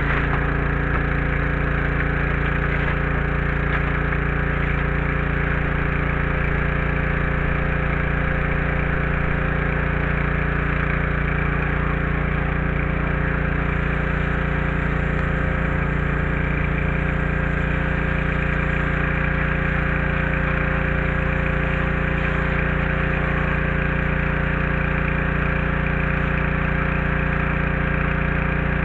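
Small gasoline engine of a pressure washer, newly fitted with electric start, running at a steady speed with an even, unchanging note.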